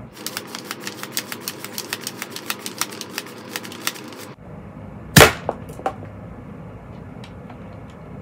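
Plastic Nerf toy blaster being handled and reloaded: a run of quick sharp clicks, about six a second, for roughly four seconds, then one loud sharp snap a little after five seconds in, followed by a couple of lighter clicks.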